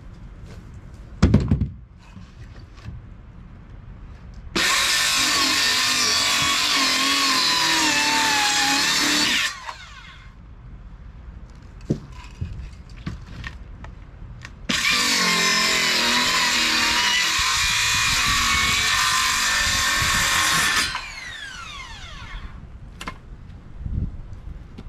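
Electric power saw cutting lumber twice, each run about five to six seconds; after the second cut the blade winds down with a falling whine. A single sharp knock about a second in.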